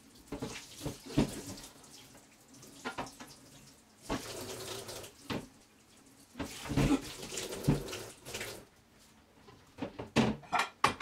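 Tap water running into a sink in stretches while items are washed, with irregular knocks and clatter, including a quick run of knocks near the end.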